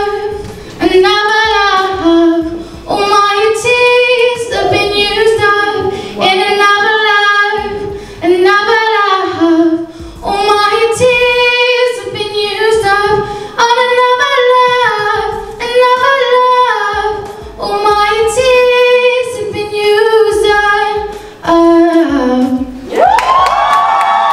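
A woman singing unaccompanied into a microphone, in a string of short sung phrases with held notes and brief breaths between them, finishing on a longer held note near the end.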